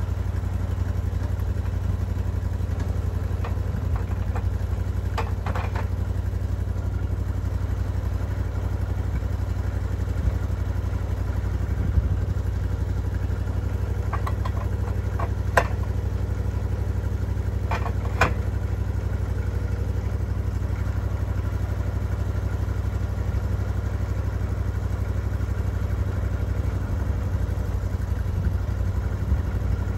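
Portable bandsaw sawmill's engine idling steadily while the blade is not cutting, with a few sharp knocks as boards are handled on the steel mill bed.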